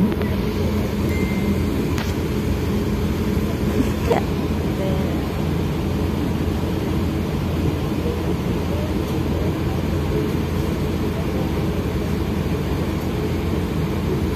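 Steady low drone of an OceanJet fast ferry's engines heard inside the passenger cabin, with faint passenger chatter under it.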